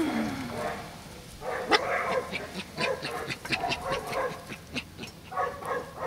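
Puppies yipping as they play-fight: a quick run of short, sharp yips through the middle, with a few longer pitched yelps about a second and a half in and near the end.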